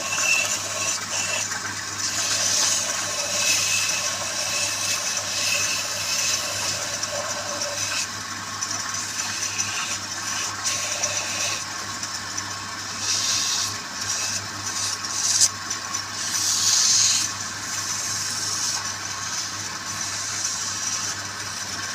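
Wood lathe running with a steady hum while a turning tool cuts the spinning wood in repeated hissing, scraping passes, with a sharp click partway through.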